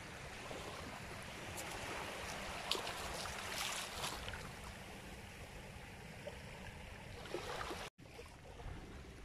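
Shallow sea water washing gently over a sandy shore, a steady wash with a brief dropout about eight seconds in.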